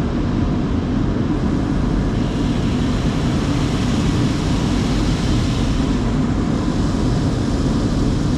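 Steady loud roar of tunnel car-wash equipment heard from inside the car. A hiss in the upper range swells about two seconds in and eases off a little past the middle.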